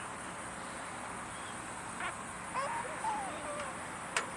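A single sharp gunshot from reenactment blank fire near the end, over a steady outdoor background hiss, with faint distant calls about halfway through.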